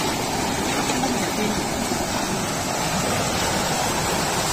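Steady rushing of a rocky mountain river cascading over boulders into a pool.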